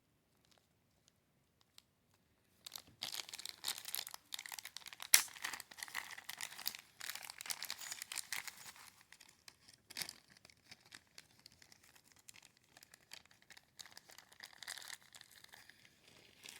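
Crinkling and tearing of plastic packaging, a parts bag being handled and opened to get at small rifle parts, with sharp clicks among it. It starts about three seconds in, is busiest for the next six seconds, then turns to lighter rustling.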